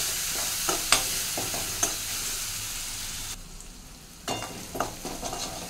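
Ground green chilies sizzling in hot tempering oil in a kadai, with a steel ladle stirring and clicking against the pan. The sizzle drops away for about a second a little past the middle, then the ladle clicks return.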